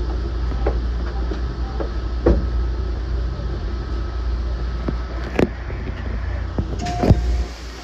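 Running noise of a JR Central Shinano limited express, a 383-series electric train, heard inside the car: a steady low rumble with a faint steady whine that stops about five seconds in, and a few sharp knocks, the loudest near the end.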